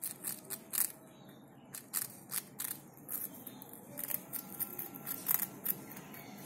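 Tiny rabbit making crisp, irregular clicks, about two or three a second.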